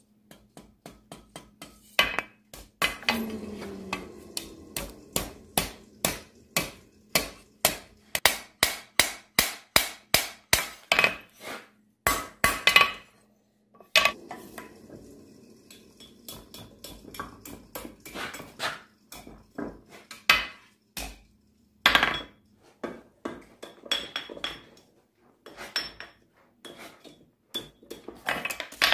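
Blacksmith's hand hammer striking hot steel on an anvil while forging: a long run of sharp, ringing blows, about two to three a second, with a brief pause about fourteen seconds in.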